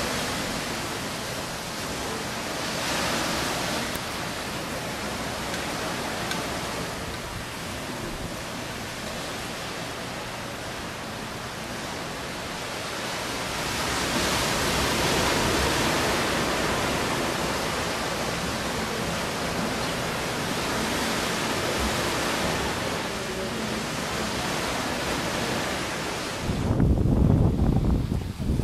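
Steady hiss of wind and ocean surf. About 26 seconds in it changes suddenly to louder, gusty wind buffeting the microphone, with waves breaking on a beach.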